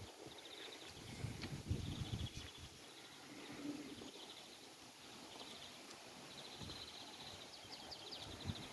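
Faint outdoor ambience of small animals trilling: short trains of rapid, high-pitched ticks that repeat every second or so. Low rumbles come and go underneath, strongest between about one and three seconds in.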